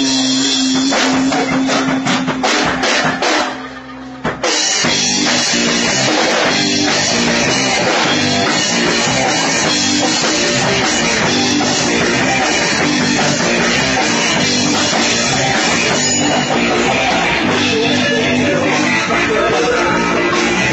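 Live rock band playing: drum kit with electric guitar and bass. About a second in the drums hit a run of sharp strokes, the band drops out briefly around four seconds, then comes back in full and plays on steadily.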